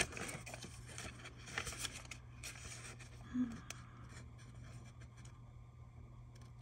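Scissors trimming stickers along the edge of a paper planner page: a click as the blades close, then a few short cutting and rustling strokes over the first three seconds. A single sharp tick comes near the middle, and after that only faint handling of the paper.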